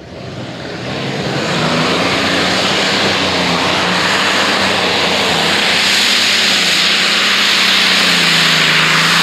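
A modified pulling tractor's Allison V12 aircraft engines run flat out under the load of a weight sled, a loud, steady engine noise that builds over the first second. The engine tone sags slightly lower near the end as the sled drags the tractor down.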